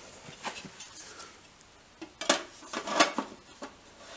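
Thin sheet-metal panel being handled and bent by hand, giving faint metallic taps and scrapes, then two louder clanks about two and three seconds in.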